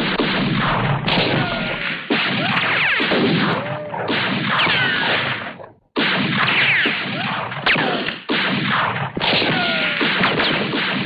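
Cartoon-style war sound effect: a dense, continuous din of gunfire, crashes and impacts, with whistling tones gliding down and up through it. It cuts out for a moment about halfway, then resumes.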